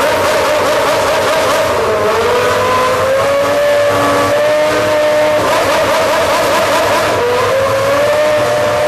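Honda V10 Formula 1 engine running at high revs, its pitch dipping and then climbing again twice.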